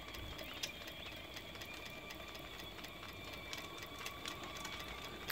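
Stuart Williamson model vertical steam engine running on live steam: a faint, fast, even mechanical ticking and clatter. The little tick comes from the eccentric rod working on its eccentric sheave.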